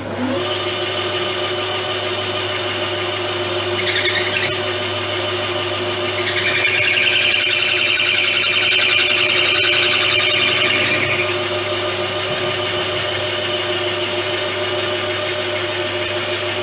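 Small metal lathe starting up and running steadily, its tool facing off a very hard workpiece. The cut squeals briefly about four seconds in, then more loudly from about six to eleven seconds, because the part is so hard.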